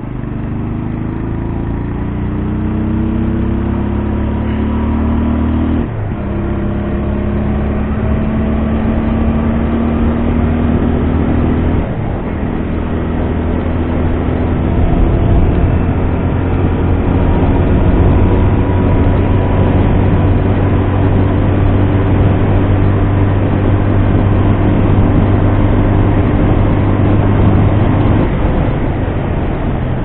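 TVS Apache RTR 200's single-cylinder engine and bass-heavy exhaust pulling under acceleration through the gears. The pitch rises steadily in each gear and drops sharply at each upshift, about six seconds in, again at twelve, and near the end.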